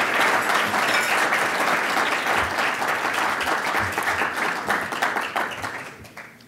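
Audience applauding, a dense patter of many hands clapping that dies away over the last second.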